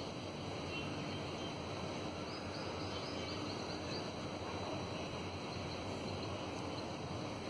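Steady outdoor background noise, an even hiss with no distinct source, with a few faint high chirps about two to four seconds in.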